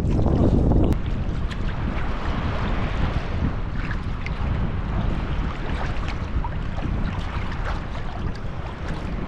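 Wind rumbling on the microphone over choppy water splashing around a sea kayak being paddled with a wooden paddle. About a second in the wind rumble drops, leaving the lap and splash of water against the hull and paddle with many small ticks of spray and drips.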